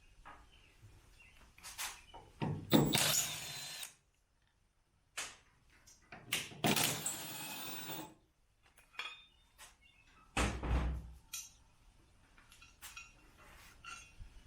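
Handheld power tool spinning in two bursts of about a second and a half each, backing out the Jeep's tailgate hinge bolts, with light clicks between and a low thump near the end.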